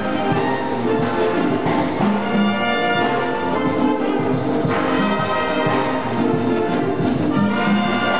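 Small wind band playing live, held notes from clarinets and brass over a drum kit.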